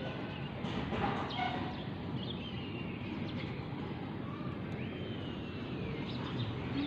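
Domestic tabby cat meowing: one long call about five seconds in that rises, then slowly falls, with a few short chirps and a steady background hum around it.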